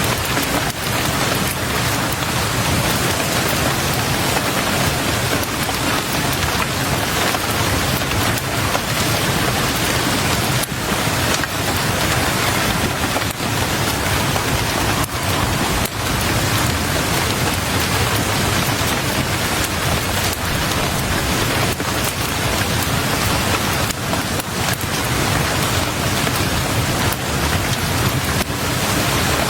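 Heavy rain pounding steadily on window glass: a dense, unbroken hiss of drops with scattered small ticks.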